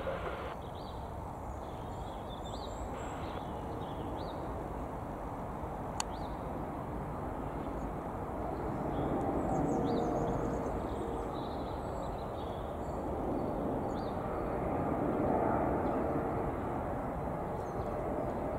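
Airbus A330-900 airliner's Rolls-Royce Trent 7000 turbofans on final approach with gear down: a low rumble and hiss that grows louder as the aircraft nears. Small birds chirp throughout, and there is a single sharp click about six seconds in.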